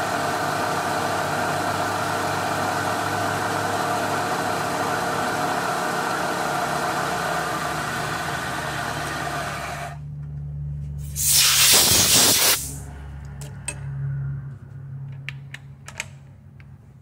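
Milling machine cutting aluminium with an end mill, a steady machining sound that stops abruptly about ten seconds in. A loud hiss follows for about a second and a half, then a few light clicks over a low hum.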